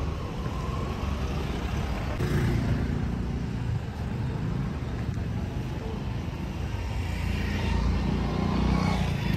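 Street traffic: engines of motor vehicles running past, a steady rumble that swells about two seconds in and again near the end.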